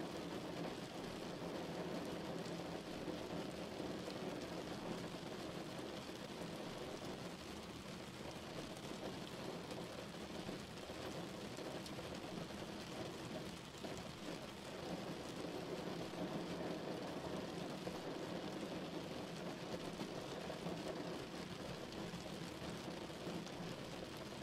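Steady rain falling: an even rush of rainfall with faint scattered drop ticks over it.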